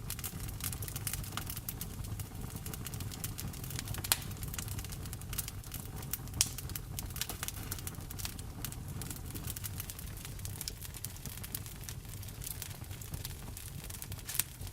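Wood fire in a fireplace crackling, with scattered small clicks and a few sharper pops about four, six and fourteen seconds in, over a steady low rumble mixed with rain.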